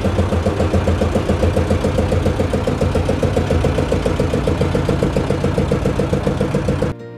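Inboard engine of a passenger ferry boat running steadily at a constant speed, with a fast, even pulse. It cuts off abruptly near the end, giving way to soft music.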